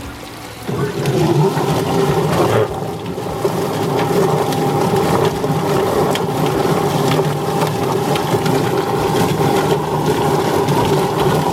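Yard Bird chicken plucker starting up a little under a second in, its electric motor running with a steady hum and scattered knocks as scalded chickens tumble inside and are plucked.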